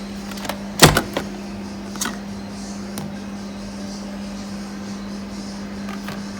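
Bosch Tassimo pod coffee machine running with a steady low hum. A few sharp knocks sound over it, the loudest just under a second in, with lighter clicks around two and three seconds and near the end.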